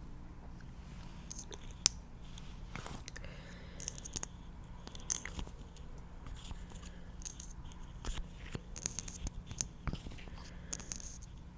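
Close-miked ASMR sticky, wet sounds: a run of small, irregular clicks and smacks, busier in the second half, over a steady low hum.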